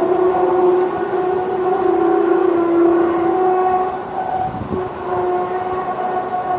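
A long, low horn-like drone with several overtones, wavering slightly in pitch, easing off briefly about four seconds in and then carrying on: the kind of droning sky sound recorded as an unexplained 'strange sound in the sky'.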